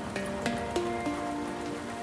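Background music: a plucked-string melody of short notes, each struck sharply and held briefly, moving in steps from one pitch to the next.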